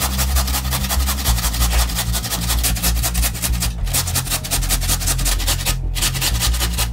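Raw potatoes grated on a stainless-steel box grater: fast, even rasping strokes that pause briefly twice, over low background music.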